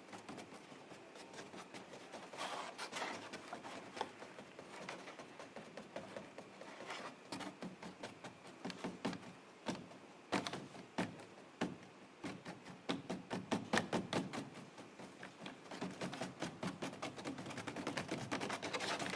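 Quiet, irregular taps and clicks from a contemporary chamber trio of flute, viola and harp played with percussive techniques rather than sustained notes, sparse at first and gathering into denser, louder clusters in the second half.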